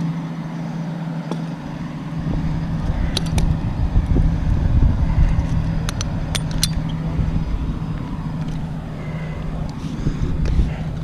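A large engine running steadily with a low rumble that swells after about two seconds, with a few sharp metallic clinks over it.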